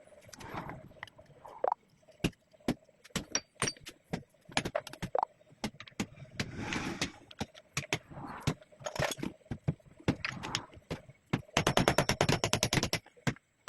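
Metal parts of a screw-capping head clinking, knocking and scraping as it is dismantled by hand with tools, with a fast run of clicks lasting about a second and a half near the end.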